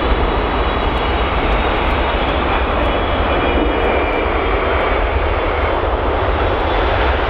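Jet engine noise from a Boeing 777-300ER's twin GE90-115B engines as the airliner touches down and rolls along the runway: a loud, steady rush with a deep rumble and a faint high whine on top.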